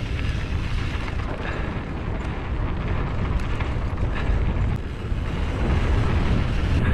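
Wind buffeting the microphone as a mountain bike rolls along a dirt trail, a steady low rumble with the tyres' crunch on the dirt and a few faint clicks.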